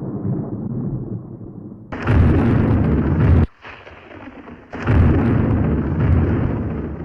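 Disney elephant smash sound effect: a low rumbling crash, then two loud smashes about two and five seconds in, each followed by a rumble that fades off. The audio is muffled, with little treble.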